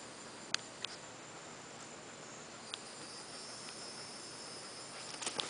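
Faint outdoor background of steady high-pitched insect song, with a second high tone joining about halfway through. A few sharp clicks fall over it, several close together near the end.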